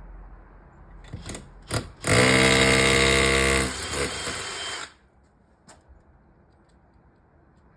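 SDS hammer drill with a 6 mm masonry bit boring into a hollow concrete block wall. It runs in one burst of about three seconds, a steady rapid hammering, and eases to a lower level for the last second before it stops. A few short knocks come just before it starts.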